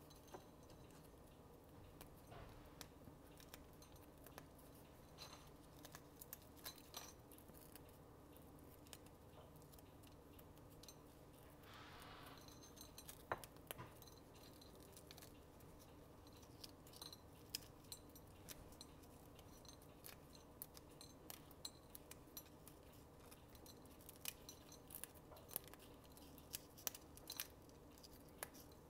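Crisp-cooked bacon being broken up by hand over a dish: faint, scattered small snaps and crackles, coming thicker near the end, over a low steady hum.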